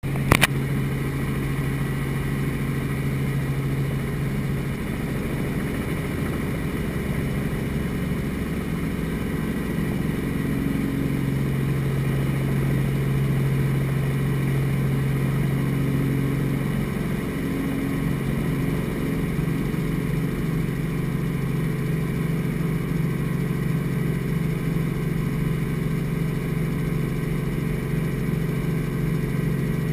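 Light piston helicopter's engine and main rotor running steadily, heard from inside the cockpit as it lifts off and climbs, with a short sharp click right at the start. The steady low drone shifts slightly in pitch about halfway through.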